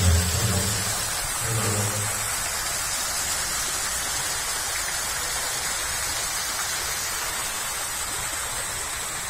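Steady rush and splash of running water at a swimming pool, with a brief low-pitched sound in the first two seconds.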